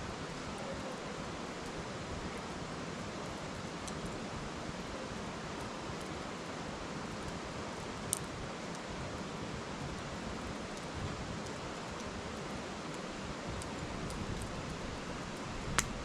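Wood fire burning in a metal fire pit, giving a few sharp pops, one about halfway through and one just before the end, with faint ticks between, over the steady rush of a shallow river.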